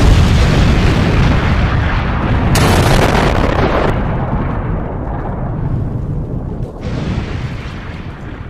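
Sound effect of a huge explosion: a deep rumble from a blast set off just before, slowly fading, with a fresh blast about two and a half seconds in and a weaker one near seven seconds.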